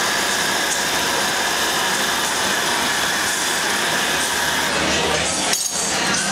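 Steady rush of gas burners in a glassblowing hot shop, with the bench torch flame playing on the glass. The sound drops out briefly near the end.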